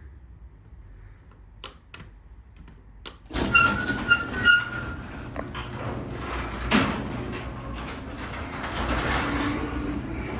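LiftMaster 3/4 hp belt-drive garage door opener closing the door: a few light clicks, then three short beeps as it starts, followed by the steady run of the opener and the door rolling down, with one sharp knock about two-thirds of the way in.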